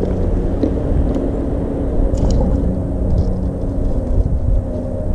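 Steady low rumble of road traffic crossing the bridge overhead, with a faint steady engine hum.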